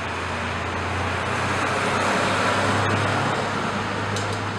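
Road traffic: a motor vehicle passing, with a steady low engine hum under a rushing noise that swells to its loudest about halfway through.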